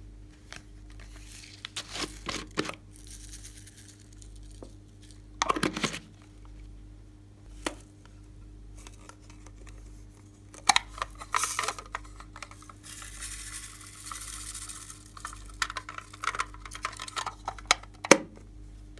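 Hard plastic toy cases being handled: scattered clicks and knocks, a rustling scrape partway through, and one sharp click near the end.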